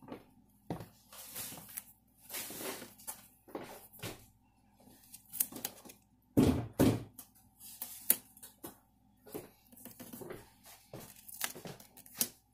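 Vinyl contact paper crinkling and rustling as it is handled, in an irregular run of rustles and light taps, the loudest about six and a half seconds in.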